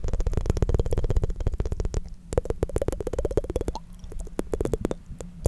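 Close-miked tongue fluttering: the tongue flaps rapidly in the mouth, making a fast run of soft clicks. The run is dense at first, then slows to about a dozen flaps a second and grows quieter about two seconds in.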